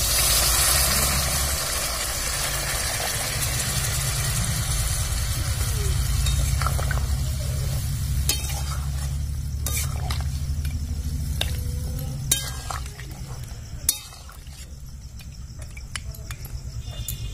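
Hot water poured into a pan of frying duck curry, hissing and sizzling loudly at first and fading over a few seconds. Then a metal spatula stirs the curry, clinking sharply against the aluminium pan five or six times, over a low steady rumble that stops about three-quarters of the way through.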